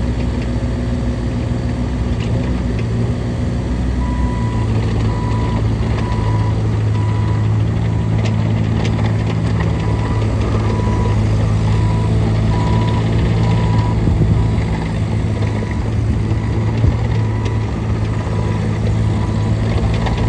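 Bobcat E32i mini excavator's diesel engine running steadily. From about four seconds in, its motion alarm beeps about once a second, the sign that the machine is tracking.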